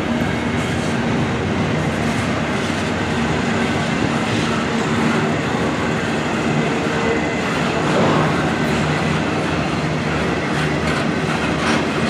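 Double-stack intermodal freight cars rolling past at close range: the steady noise of steel wheels on rail, swelling slightly about eight seconds in.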